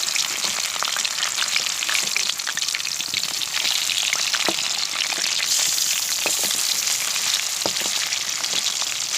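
Chicken pieces frying in hot oil in a pan, a steady loud sizzle and crackle with scattered sharp pops, while the pieces are turned over in the pan.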